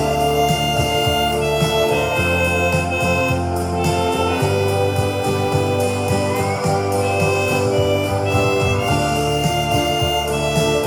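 Chromatic harmonica in C playing a slow melody of long held notes over a backing accompaniment with a steady bass line.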